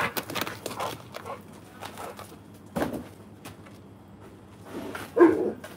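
Dog play-scuffling on concrete paving, with footsteps, and a single short bark from the American bully dog about five seconds in.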